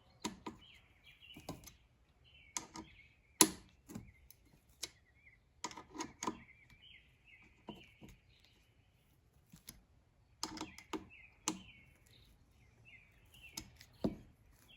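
Irregular sharp clicks and light knocks of a screw being driven in with a hand tool, fastening a steel handle to a thin sheet-metal furnace lid. Short bird chirps repeat in the background throughout.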